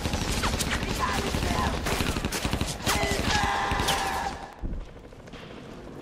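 Film battle soundtrack: rapid gunfire with men shouting over it. It breaks off about four and a half seconds in, followed by a single dull thud.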